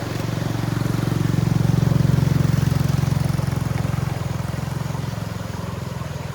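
A small engine running at a steady pitch. It grows louder to a peak about two seconds in, then slowly fades, like a motor passing by.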